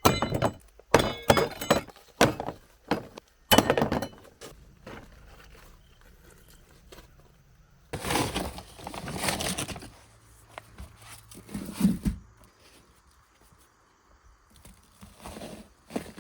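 Dry sand, mortar mix and grout being measured into a bucket: a run of sharp knocks and clatters at first, a rushing pour of dry material later on, then a dull thud.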